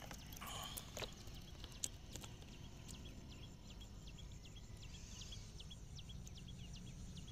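Faint, irregular little ticks, about two or three a second, of live freshwater shrimp flicking in a basin, over a low steady background rumble. In the first couple of seconds there is a brief swish and a few sharper clicks as the basin is handled.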